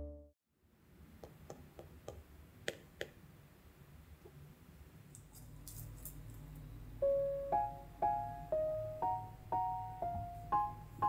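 Background music cuts off, and a few faint clicks and knocks sound over low room noise. About seven seconds in, a light piano melody begins, one note at a time.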